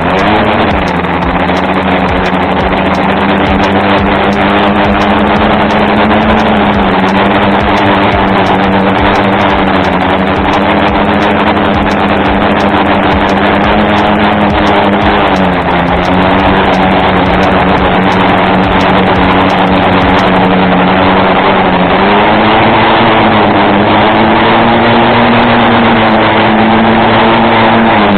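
Homemade drone's electric motors and propellers whining loudly and steadily, heard close up from the camera mounted on the drone. The pitch dips and recovers a few times in the second half as the motor speed changes.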